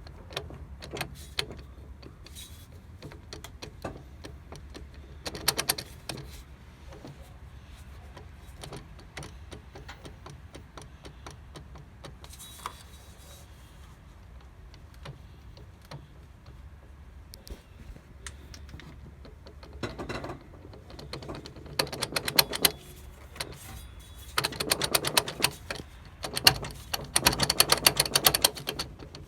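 Front drive line of a 2002 Dodge Durango R/T clicking as the vehicle is driven: scattered clicks over a low steady rumble, gathering into bursts of rapid clicking about five seconds in, around twenty seconds in, and most densely near the end. The clicking is the sign of a fault in the front drive line, which also grinds when driven.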